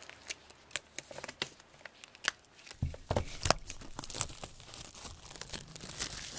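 Plastic shrink-wrap being torn and peeled off a Blu-ray box set: irregular crackling and crinkling, busier and louder about halfway through.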